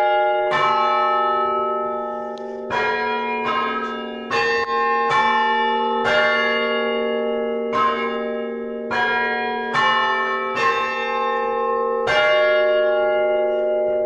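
Church bells being rung, one stroke after another at uneven gaps of about half a second to a second and a half. Each long ringing note carries on under the next.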